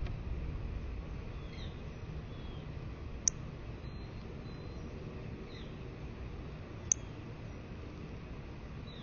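Northern cardinal giving two sharp, high chip notes about three and a half seconds apart, with a few fainter short calls between, over steady low rain noise.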